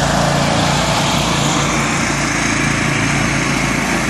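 Small engine running steadily at constant speed.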